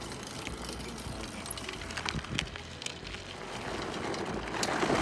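Tyres of a pedal go-kart rolling over gravel, the noise growing louder near the end, with a few sharp clicks.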